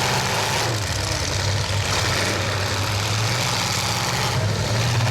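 Demolition derby truck engines running, a steady low drone.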